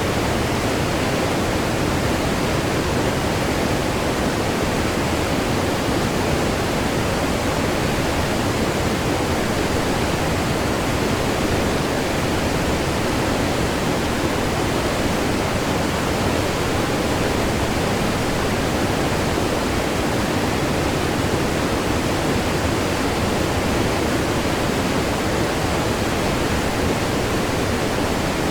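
Waterfall heard close up: a loud, steady rush of falling water, even throughout.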